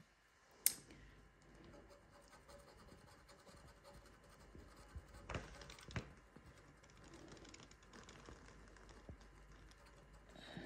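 A finger scratching the coating off a paper lottery scratch card, a faint continuous scraping, with a sharp click about a second in and two softer taps around the middle.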